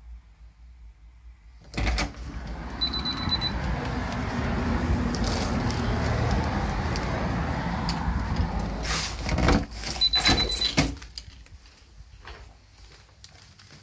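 Front door unlatched and swung open about two seconds in, letting in a steady rumble of street traffic. About nine seconds in comes a run of sharp knocks and clatters as the door is shut, after which it is much quieter, with a few small handling clicks.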